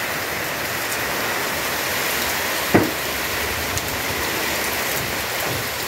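Heavy rain falling, a steady even hiss. A single sharp tap about halfway through.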